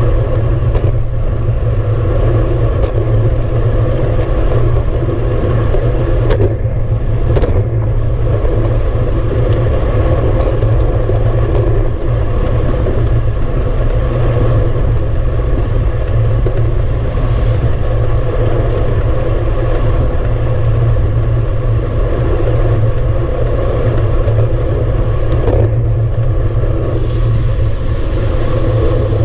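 Wind buffeting the microphone of a bicycle-mounted camera, with tyre noise from a road bike rolling on asphalt: a steady low rumble. There are a few short sharp clicks near the start and again near the end, and the hiss picks up shortly before the end.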